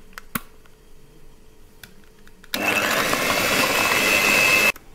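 Electric hand mixer switched on about halfway through, beating eggs, sugar and vanilla in a plastic bowl. It runs steadily with a high whine for about two seconds, then cuts off abruptly. A single light click comes a fraction of a second in.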